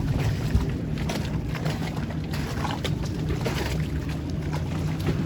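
Boat motor running steadily at low speed, a constant low hum with water and wind hiss over it.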